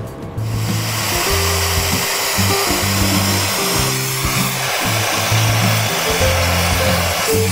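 Background music with a steady bass line, over the steady hissing roar of a gas brazing torch burning, which starts about half a second in.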